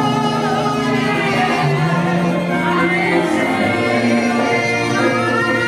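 A woman singing a gospel worship song into a microphone, amplified through the sound system, over held instrumental chords.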